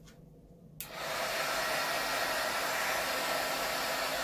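A heat gun switched on with a click about a second in, then blowing steadily, heating vinyl wrap to soften it for stretching.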